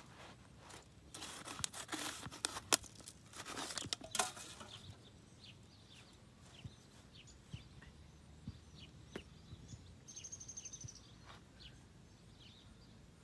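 Rough rustling and crinkling scrapes for about four seconds, then faint scattered bird chirps, with a short high, fast trill about ten seconds in.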